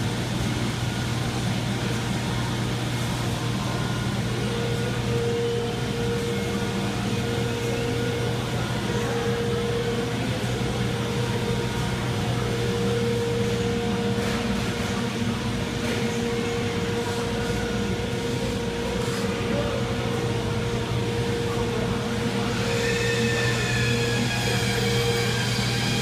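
Steady din of woodworking machinery running in a cabinet factory: a constant low hum with a steady tone over it. About 22 seconds in, a machine's higher, multi-pitched whine comes in.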